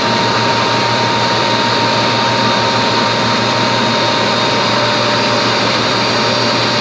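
Belliss & Morcom WH50H3N crosshead-type reciprocating air compressor running, a loud, steady machine noise with an even low hum and a steady whine.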